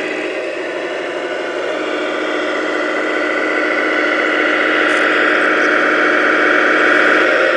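Radio-controlled Tamiya 1/14 King Hauler truck driving, a steady engine-like sound with several held tones that grows louder as the truck comes closer.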